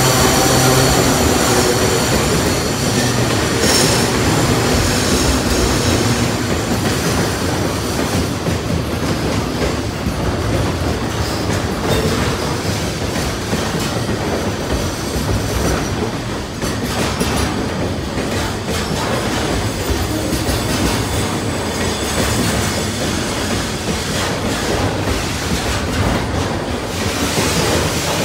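Freight train passing: a diesel locomotive's engine hum fades in the first couple of seconds, then the wagons roll by with steady rumble and clatter of wheels over rail joints. There is high wheel squeal over the first several seconds.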